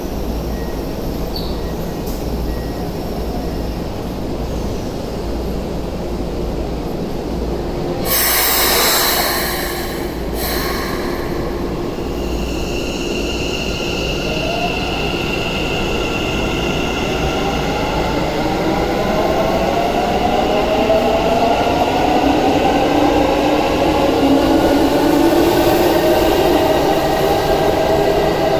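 Keikyu electric commuter train in an underground station: a loud hiss of air about eight seconds in as the doors close, then the train pulls away, its motors whining in several rising tones that grow louder toward the end.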